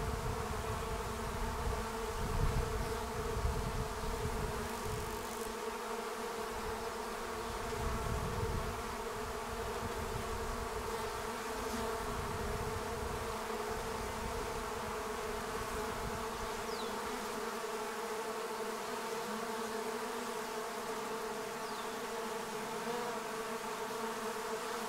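A swarm of honey bees buzzing in a steady, dense hum as it lands on the front of a nucleus hive and moves in. A low rumble underneath dies away about two-thirds of the way through.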